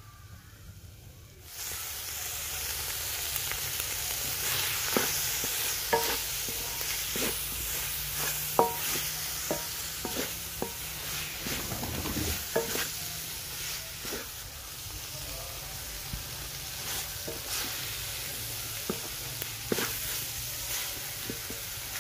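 Mutton mince sizzling in a steel karahi as a little cooking oil goes in. The sizzle starts suddenly about a second and a half in and keeps up while a wooden spoon stirs and scrapes the mince, knocking against the pan now and then.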